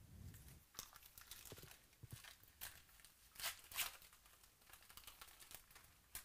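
Foil trading-card pack being torn open and its wrapper crinkled: a run of faint crackles and rips, loudest about three and a half seconds in.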